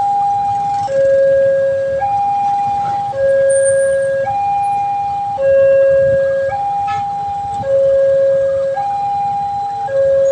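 Railway level-crossing warning alarm sounding a two-tone electronic siren, a higher and a lower tone alternating evenly, each held about a second, warning that a train is approaching.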